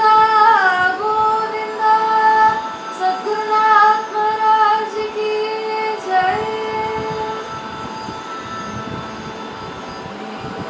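A girl singing a Carnatic-style devotional kirtan solo, holding long notes with sliding ornaments over a steady drone. Her voice stops about seven seconds in and the drone carries on alone.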